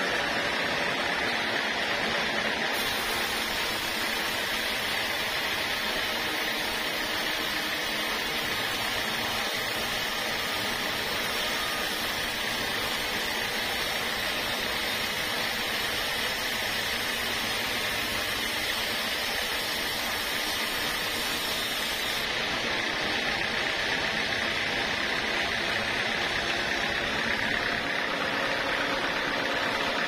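Sawmill band saw running steadily, its blade ripping a teak beam lengthwise. A higher hiss rides over the steady machine noise from about three seconds in until about twenty-two seconds in.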